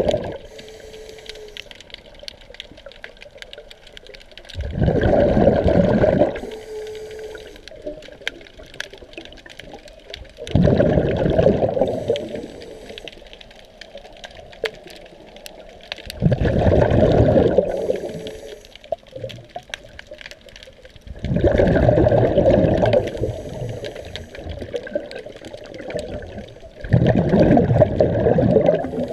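Scuba diver breathing underwater through a regulator: a loud rush of exhaled bubbles lasting a second or two comes about every five to six seconds, with quieter hiss between breaths.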